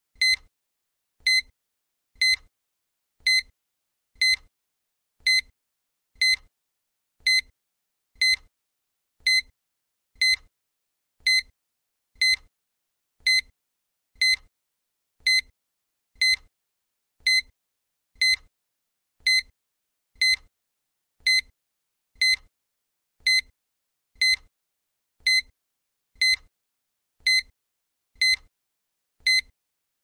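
Digital countdown timer's tick sound effect: a short, high electronic tick once a second, with a faint low thud under each, marking each second as the count runs down.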